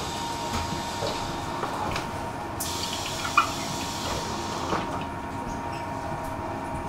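Tram in motion, heard on board: a steady running rumble with a thin, steady whine, scattered light clicks and rattles, and a sudden burst of hiss about two and a half seconds in, followed shortly by a sharp click.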